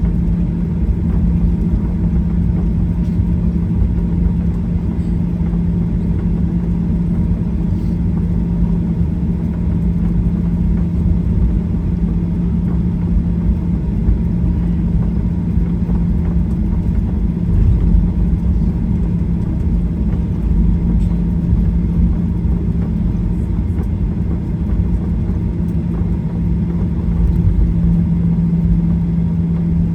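Inside the cabin of a Boeing 737-800 on the ground after landing: a steady low rumble of the jet engines at idle, with a constant low hum.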